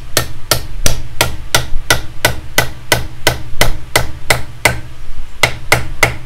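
Steady hammer blows on the end of a carved wooden table leg, driving it into its socket in a wooden stump table top. There are about three sharp strikes a second, with a short pause about five seconds in.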